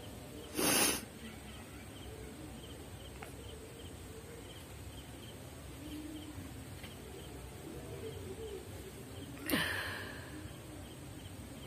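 Two short, sharp breaths through the nose, one about half a second in and one near the end, as the nose is tickled with a stick to bring on a sneeze that does not come. Faint, even chirping repeats about twice a second in the background.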